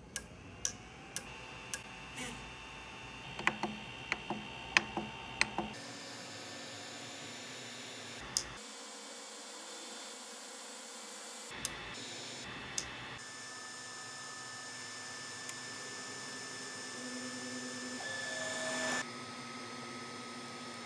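Ender 3D printer running: a steady fan hum with a high whine, and a dozen sharp clicks from its control knob in the first five seconds. Later the stepper motors whine in steady tones; they swell just before the pitch changes near the end, as the extruder drive feeds filament.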